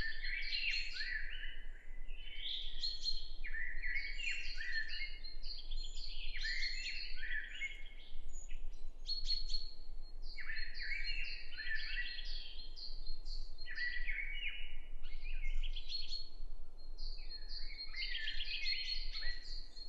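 Several songbirds singing and calling over one another in a continuous chorus of quick, varied, high phrases.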